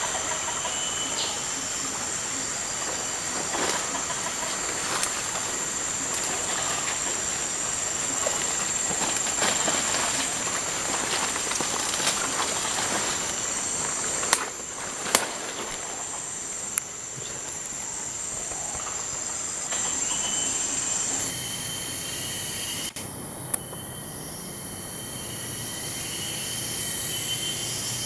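Forest insects droning steadily at a high pitch, under the crackle and rustle of footsteps pushing through undergrowth and leaf litter, with a few sharp snaps partway through. About three-quarters of the way in the insect drone changes to a different high tone.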